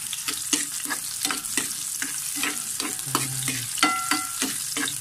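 Chopped garlic and onion sizzling in oil in a frying pan while a metal ladle stirs them, scraping and clicking against the pan several times a second. Near four seconds in, one strike of the ladle rings briefly.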